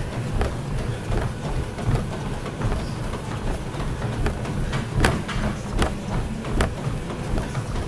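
Exercise machine in use: a steady low rumble with sharp knocks at a regular pace, about every three-quarters of a second in the second half.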